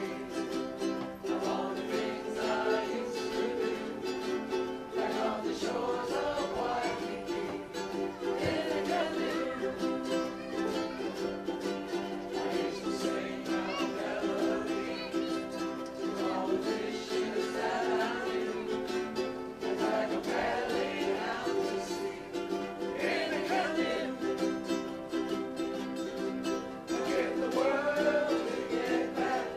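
A group of ukuleles strumming chords together in a steady rhythm, with voices singing along.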